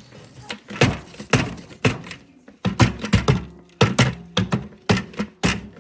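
A quick, irregular series of hard knocks and clunks, about a dozen in under six seconds.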